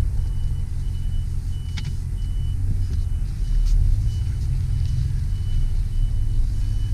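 Steady low rumble of a pickup truck heard from inside the cabin as it idles or rolls slowly. A short, high electronic beep repeats about every half second over it.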